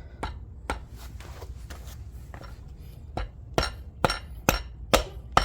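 Rubber mallet tapping a CV axle's splined shaft into the joint, a string of sharp knocks that come about two a second and grow louder in the second half. The shaft is being driven in until its circlip seats.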